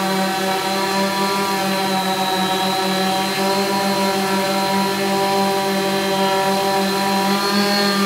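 VulcanUAV Black Widow X8 coaxial octocopter hovering on eight 400 kV brushless motors spinning 15-inch carbon-fibre propellers, a steady droning buzz whose pitch wavers slightly as the flight controller adjusts motor speeds. It is carrying a 5 lb payload.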